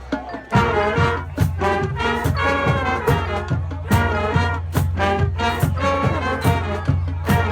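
High school marching band playing a brass-heavy tune, trumpets and trombones over a steady drum beat of about two strokes a second, coming in about half a second in after a brief pause.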